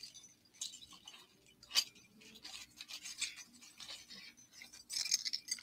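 Earrings on cardboard display cards being sorted and picked up by hand: scattered rustling, scraping and light clicks, with one sharper click just before two seconds in and a busier bit of handling near the end.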